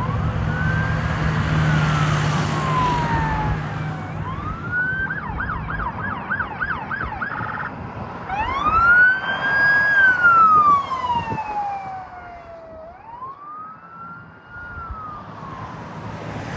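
Emergency vehicle's electronic siren sounding on a response: slow rising-and-falling wails, switching to a fast yelp for a few seconds, then back to the wail. It is loudest about ten seconds in, then fades. A steady engine hum lies under the first few seconds.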